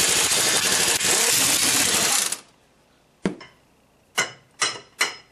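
Pneumatic impact wrench rattling for about two seconds, spinning off a bolt at the trunnion bearing of a 1957 Napco 4x4 front axle, followed by four light metal clinks.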